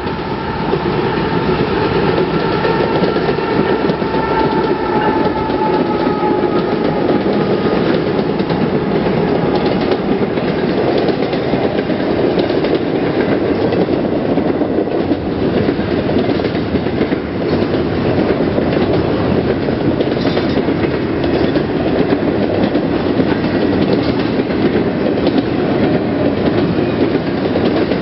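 A Norfolk Southern freight train rolling steadily past at speed, its wheels clacking over the rail joints. A chord of high tones hangs over the first several seconds and fades away.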